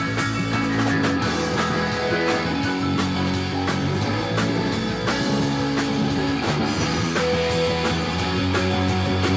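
Rock band playing live with electric guitars, bass guitar, keyboards and drum kit, in a steady jam.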